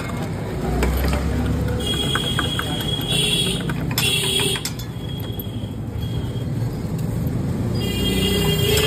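Street traffic noise, with a low vehicle rumble about a second in and several short, high-pitched tones.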